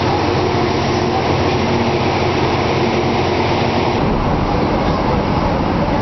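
Steady mechanical noise of a steamboat engine room, the paddle-wheel drive machinery running with a constant hum. About four seconds in, it gives way to a low rumble of wind and water out on the open deck.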